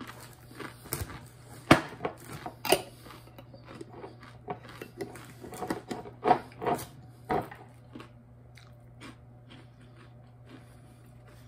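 Crunching of tortilla chips being bitten and chewed: a run of sharp crunches over the first seven seconds or so, then fewer and fainter ones.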